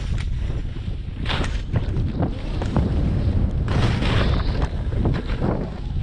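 Wind buffets the microphone as a constant low rumble. Skis hiss and scrape over packed snow in swells during the turns, about a second in and again around four seconds in.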